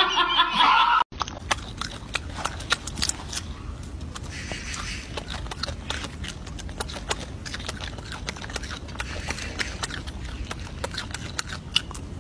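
A golden snub-nosed monkey biting and chewing a piece of fruit: irregular crisp crunching clicks over a steady low background hum. Before that, a voice cuts off abruptly about a second in.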